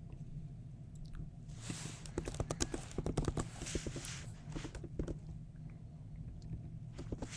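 Computer keyboard typing: a quick run of key clicks from about two seconds in until about five seconds, with a few more near the end, over a steady low hum.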